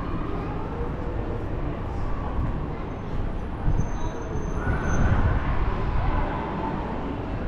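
Outdoor street ambience: a steady low rumble of traffic, swelling a little around the middle.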